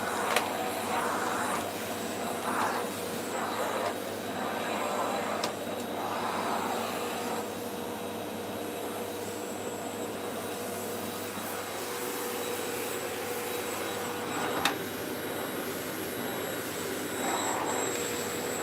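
Vacuum cleaner running steadily with a constant whine. Its sound swells and fades every second or so in the first half, as the nozzle is worked over the floor, with a few sharp clicks, the loudest about three-quarters of the way through.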